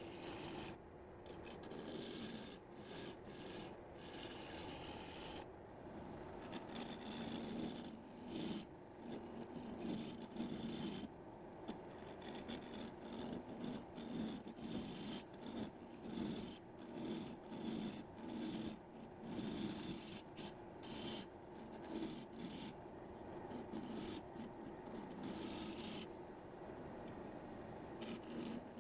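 Wood lathe turning an Australian red cedar blank while a hand-held turning tool cuts it: a steady low hum under uneven scraping that drops out and returns again and again as the tool bites and lifts off.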